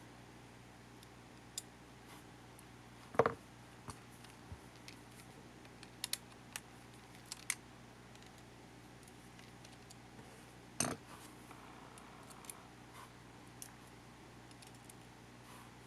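Small clicks and taps of plastic parts and tools being handled while a camcorder is taken apart, with two louder knocks, one about three seconds in and one about eleven seconds in, over a faint steady hum.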